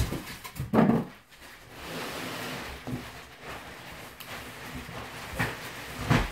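Flaps of a large cardboard shipping carton being pulled open: cardboard scraping and rustling, with several dull knocks, the loudest about a second in.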